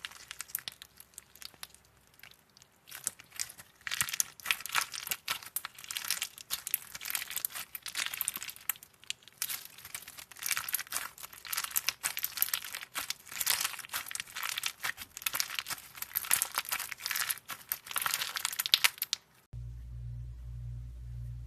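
Crunchy slime being squeezed and worked by hand, a dense run of crackling and crunching pops. Near the end it cuts off suddenly, and a steady low hum follows.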